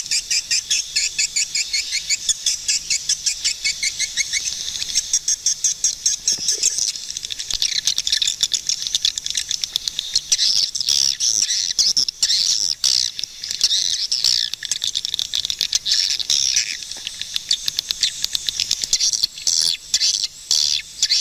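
Swiftlets twittering: fast, high-pitched chirps and trills, a rapid even series of chirps in the first few seconds giving way to a denser, more varied chatter.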